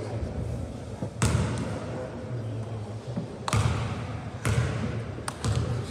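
Basketball bouncing on a court floor: four separate sharp bounces, unevenly spaced, over a steady low hum.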